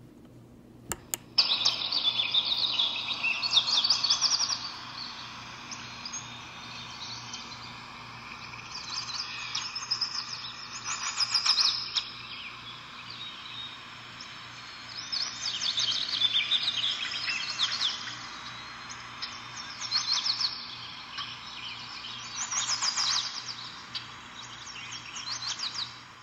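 Pre-recorded songbird chatter played from a small craft soundbox: quick chirps and twittering trills in clusters with short lulls between. It starts about a second in, just after two short clicks.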